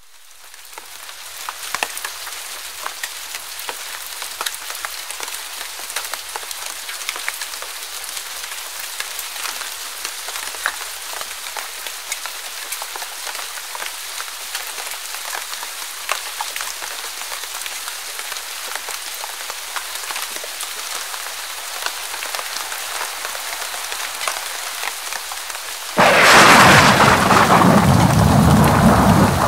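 Steady, heavy rain falling and pattering on a hard surface, fading in over the first couple of seconds. Near the end a sudden, much louder thunderclap breaks in and drops into a low rumble.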